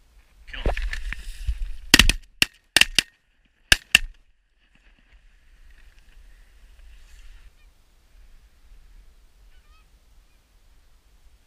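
Geese honking loudly, then a rapid volley of about six shotgun shots within two seconds, after which fainter goose honking goes on.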